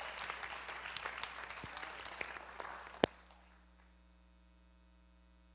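Congregation applauding, the clapping dying away over about three seconds. A single sharp knock comes near the end of the clapping, then a faint steady hum remains.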